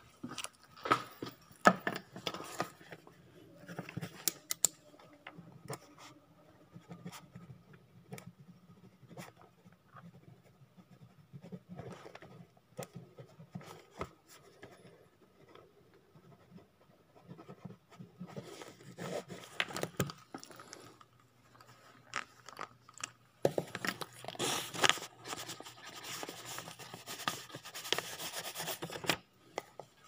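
A phone and papers being handled on a desk: scattered scrapes, rustles and clicks, with a denser stretch of scraping and rustling about six seconds before the end. A faint steady hum sits underneath.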